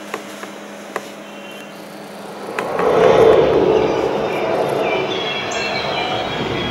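Sony HT-Z9F soundbar and its wireless subwoofer playing the opening of a Dolby Atmos demo trailer. After a few faint clicks over quiet room noise, a rushing swell of sound with a low rumble rises about two and a half seconds in and holds.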